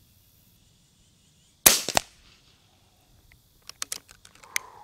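A single shot from an Ataman M2r Ultra Compact X .22 regulated PCP air rifle, a sharp crack about a second and a half in, followed a third of a second later by a second, quieter crack. A run of light clicks and taps comes near the end.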